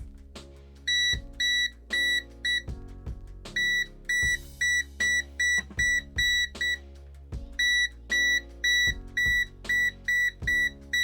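VENLAB VM-600M multimeter beeping in its electric-field detection mode, signalling the field of a live electrical wire. Short high beeps come about three a second in three runs, with brief pauses between the runs.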